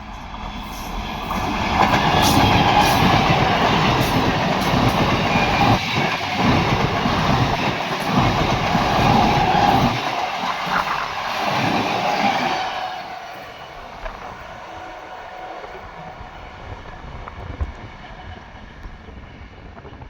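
A train running past on the track, its wheels clattering over the rails. The noise builds over the first two seconds, stays loud for about ten seconds, then dies away about thirteen seconds in.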